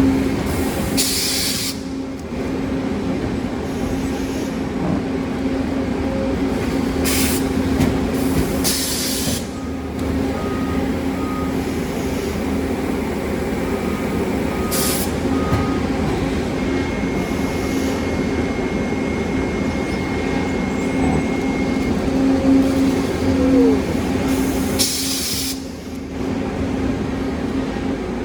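Double wood-shavings baler running in production, with a steady hum from its drive and several sharp bursts of air hiss as it cycles. Short beeps come in threes a few times, and a thin steady tone is held for a few seconds past the middle.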